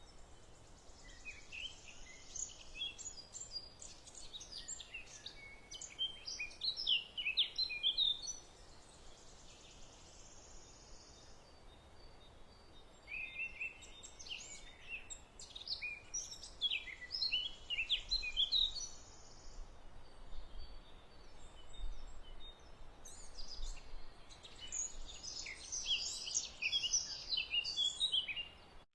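Small birds singing: quick high chirps and short trills in three spells of song, with quieter pauses between them, over a faint steady hiss.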